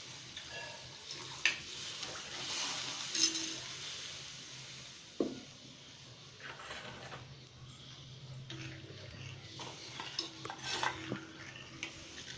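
A spoon stirring and clinking in a cooking pot of rasam, with scattered sharp knocks against the pot over a faint sizzle.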